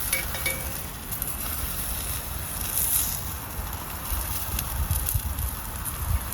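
Wind gusting over the microphone, with faint crackling from a wood fire in a fire pit.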